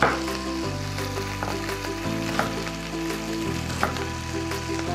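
Chicken frying in oil in a pan, with a steady sizzle, under background music with changing chords. A few soft knife strokes on a wooden cutting board as a red onion is diced.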